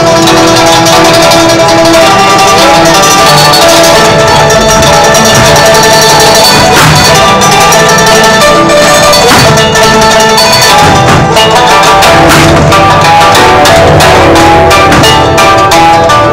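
Loud music with a melody over drums and percussion, the drum strokes coming thicker about eleven seconds in.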